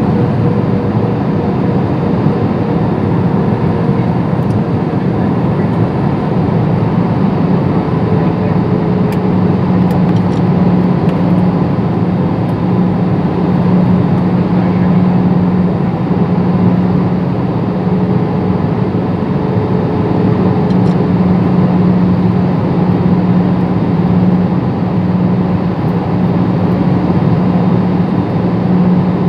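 Airliner cabin noise during the night descent: the engines and the rush of air past the fuselage make a loud, steady drone with a low hum running through it.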